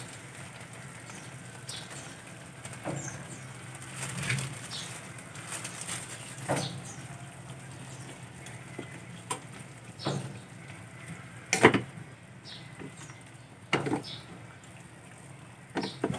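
Wooden spatula stirring pork cubes in a nonstick frying pan: scattered knocks and scrapes of wood against the pan, the loudest about halfway through.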